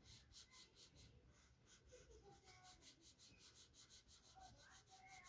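Faint, quick scratching of pink colour being rubbed back and forth on a workbook page, about five strokes a second.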